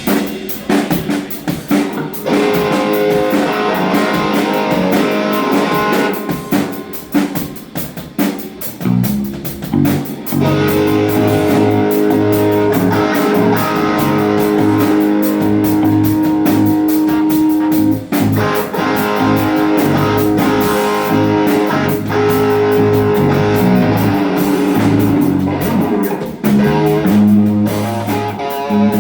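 Live rock band playing during a sound check: electric guitars over bass and drum kit. The playing thins out and drops a few seconds in, then comes back full and steady for the rest.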